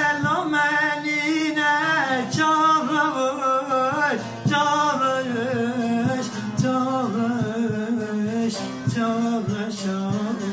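A Kurdish song sung in a melismatic, ornamented style, the voice bending around each note and ending on a long held note near the end, over a plucked string accompaniment.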